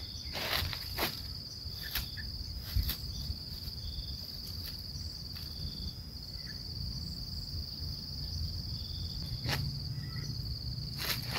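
Insect buzzing steadily at one high pitch, with sharp clicks scattered through it, the loudest about half a second in and near the end, and a few faint short chirps.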